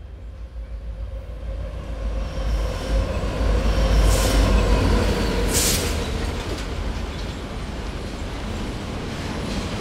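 Train running on the rails: a low rumble that swells over the first four seconds, with two brief high-pitched bursts about four and five and a half seconds in, then settles into a steady run.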